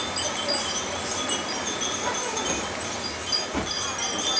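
Wind chimes tinkling: a scatter of short, high, ringing notes at several pitches.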